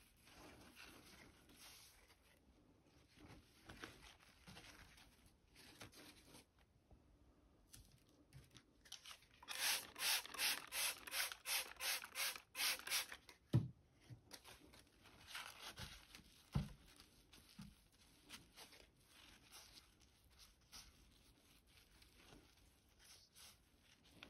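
A tissue rubbed and wiped across a wet, fogged mirror glass in soft rubbing strokes. Near the middle comes a run of quick, even strokes at about four a second, followed by two short low thuds.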